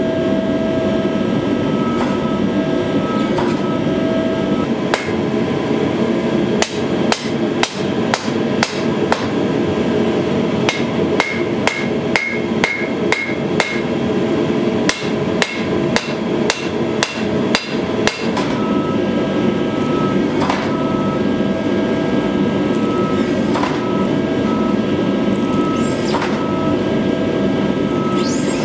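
Hand-hammer blows on a red-hot steel sword blade on an anvil, sharp ringing strikes about two a second in a run of about ten seconds in the middle, with a few single blows before and after. Under them runs the steady hum of the motor of a forging machine.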